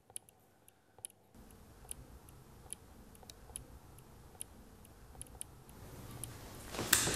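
Sharp, high clicks about once or twice a second, over a low rumbling drone that comes in about a second in and swells, growing loud near the end.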